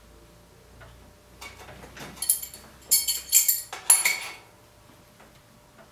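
Metal tools clinking at a hub motor's axle nut: a wrench knocking and jingling against the nut and axle hardware, with a cluster of sharp ringing clinks from about two to four seconds in.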